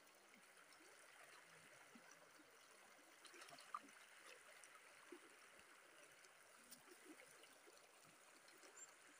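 Faint, steady rush of a shallow river running over rocks, with a single sharp tick a little under four seconds in.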